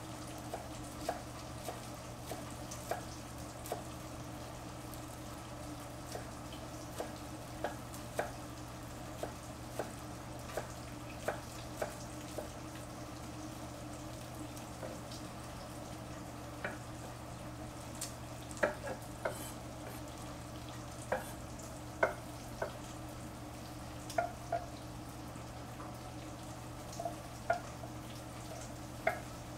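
Kitchen knife chopping green onions on a wooden cutting board: irregular sharp knocks of the blade on the board, about one a second, several of them louder in the second half.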